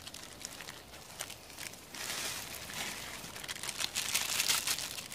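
Plastic instant-noodle packet and its flavour sachets crinkling and rustling as they are handled and opened; the crinkling grows louder about two seconds in.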